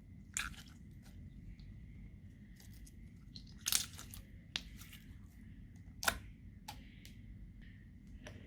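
Slime being squished and stretched by hand, giving scattered sticky clicks and crackles, the loudest about four and six seconds in. A faint steady high whine runs underneath.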